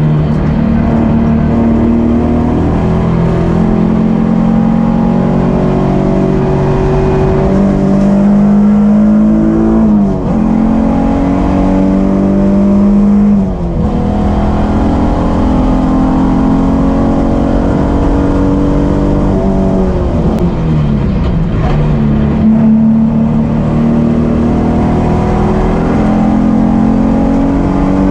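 2003 Nissan 350Z's 3.5-litre V6, heard inside the stripped, caged cabin, running hard at full throttle on a race track with its pitch climbing through the revs. Quick upshifts about ten and thirteen seconds in each drop the pitch sharply with a brief dip in loudness. The pitch falls longer around twenty seconds in as the car slows for a corner, then climbs again.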